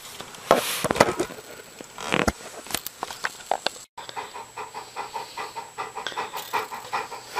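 Dog panting in quick, even breaths through the second half, after a few knocks and rustles of handling in the first half.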